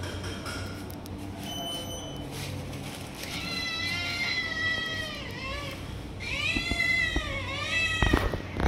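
Tabby-and-white cat meowing: two long drawn-out meows, each sinking in pitch at its end. A few loud thumps follow near the end.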